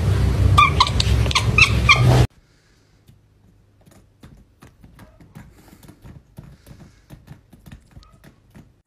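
A cat giving a series of short, high chirps, several in quick succession, over a loud low hum. About two seconds in this cuts off abruptly to a faint run of small wet clicks as a cat licks and mouths a plastic phone charger plugged into a wall socket.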